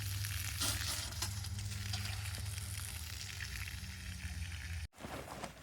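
Water running steadily from a hose into a livestock waterer, a continuous hiss over a low hum, cutting off abruptly near the end.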